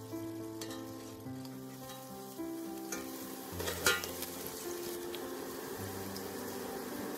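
Garlic slices sizzling as they fry in oil in a stainless steel kadai, stirred with a steel spatula that scrapes against the pan once sharply about four seconds in. Background music with long held notes plays throughout.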